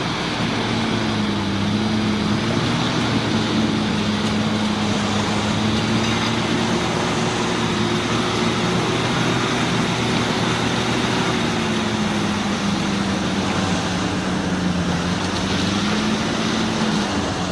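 Off-road 4x4's engine running under sustained throttle at raised revs, its pitch wavering slowly up and down, then dropping as the revs fall near the end.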